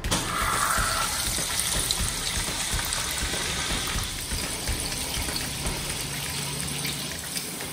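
Raw grated plantain base dropped into hot oil in a skillet, sizzling the instant it hits and then frying with a steady hiss and crackle.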